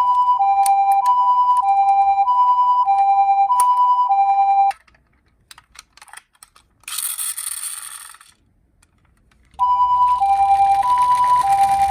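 Toy ambulance minicar's electronic hi-lo siren, a two-note 'pee-po' switching between a high and a low note about every half second. It stops about four and a half seconds in. After a few clicks and a short hiss, the siren starts again near ten seconds in, now with a rumbling noise under it.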